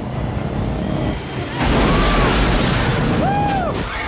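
A Fairchild C-123 cargo plane's engines rumbling as it comes in low. About one and a half seconds in comes a loud crash as the plane smashes through a giant neon guitar sign, with metal screeching in several rising-and-falling shrieks over the din.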